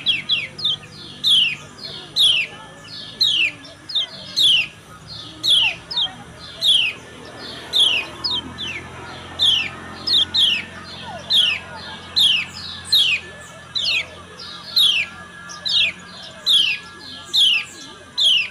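Female kecial kuning (a white-eye) calling: a steady run of short, high, down-slurred chirps, about one and a half to two a second, some in quick pairs.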